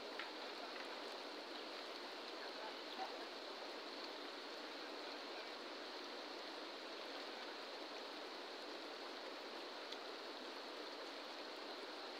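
Steady rush of a fast-flowing river running over rocks, with a couple of faint ticks.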